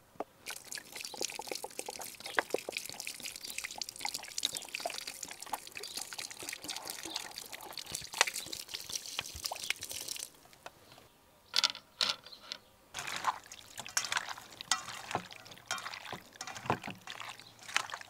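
Water pouring and trickling into a plastic bottle holding wooden skewers, a dense splashing trickle that stops abruptly about ten seconds in. Then comes a string of wet squelches and clicks as hands knead marinated meat chunks in a steel bowl.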